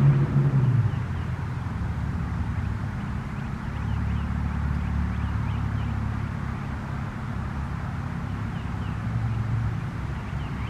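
Federal Signal 2001-130 warning siren at the tail of its wind-down: its low growl drops away about a second in. It leaves a faint low hum that slowly swells and fades over a steady rumble, with the siren head still turning after shutdown because of a rotator malfunction.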